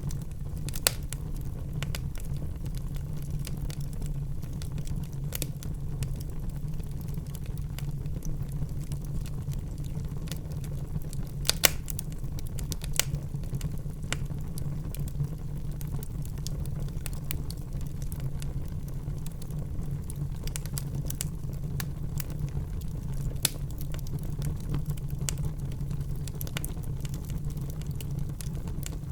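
Wood fire in a fireplace crackling, with scattered sharp snaps and pops over a steady low rumble of burning; the loudest pops come about a second in and near the middle.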